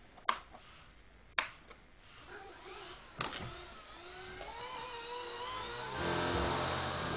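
Three sharp clicks, then a Blade mCP X micro RC helicopter's motor and rotor spinning up with a rising whine; about six seconds in it jumps to a loud, steady buzz of several tones. This is the vibration noise the owner calls horrible, on a heli that wobbles in flight and whose main shaft moves up and down.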